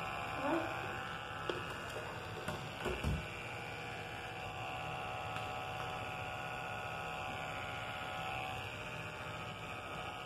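Electric pet hair clippers running with a steady hum, with a few soft knocks from handling in the first few seconds.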